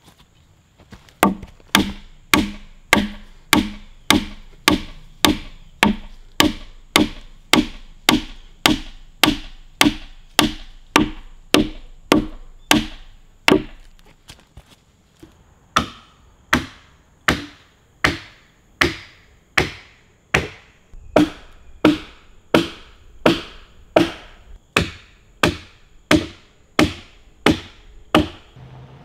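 A wooden mallet striking again and again, driving an offset wooden peg down through a drawbored sill joint to pull the tenon tight. The blows come at a steady rhythm of about three every two seconds, with a short break about halfway.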